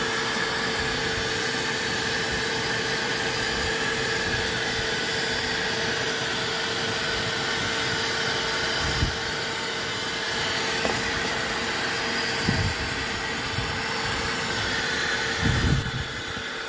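Shop vac running steadily, its hose and wand vacuuming the car's floor carpet: a constant rushing noise with a steady whine. A few low thumps come in the second half.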